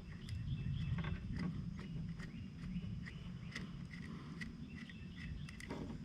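Scattered light clicks and taps of a hand swaging tool and wire cable being handled and repositioned, over a steady low outdoor rumble, with a series of short high chirps in the middle.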